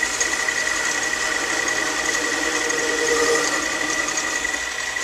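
Small metal lathe running steadily, its motor and drive giving an even whine with a constant high tone.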